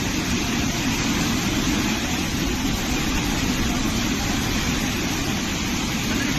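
Steady roar of a waterfall: water crashing down, an even rushing noise with no change in level.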